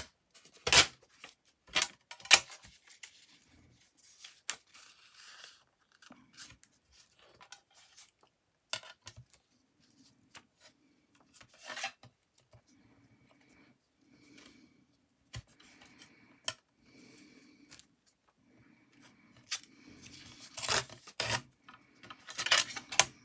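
Craft paper being torn and cut in short, separate bursts, with quieter paper handling in between; the loudest bursts come near the start and again near the end.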